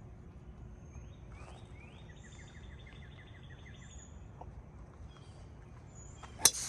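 A golf club strikes the ball off the tee once near the end: a single sharp crack with a brief ring. Before it, a bird trills with a rapid run of even notes, about six a second, over steady outdoor background noise.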